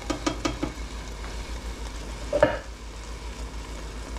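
Ground beef and sauce sizzling in an aluminium pan. A quick run of light knocks comes in the first second, and one louder clink about two and a half seconds in.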